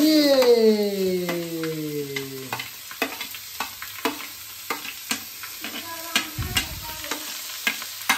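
Chopped onion being scraped with a metal spoon from a plate into hot oil in a steel kadai: the oil sizzles while the spoon taps and scrapes repeatedly against the plate and pan. A loud pitched tone slides steadily downward over the first two and a half seconds.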